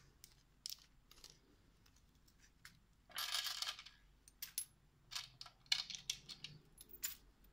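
Small metal jewellery charms and pendants clicking and clinking against each other as they are handled and dropped into a velvet drawstring pouch, with a brief rustle about three seconds in.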